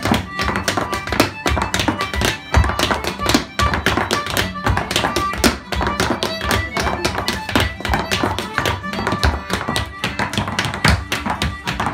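Irish step dancing: hard shoes beating quick, rhythmic taps on a wooden floor over a traditional Irish tune played on instruments.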